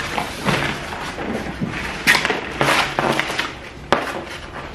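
Rustling, scraping and knocking as a tall potted plant is picked up and moved by hand, its leaves brushing close by. The noises come in irregular bursts, with a sharp tap near the end.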